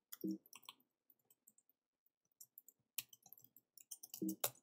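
Soft computer keyboard keystrokes, scattered clicks with a quick run of them near the end, as text is edited in a code editor.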